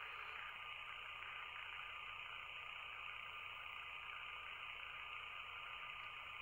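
Faint steady background hiss with a thin high hum running under it: room tone, with no distinct event.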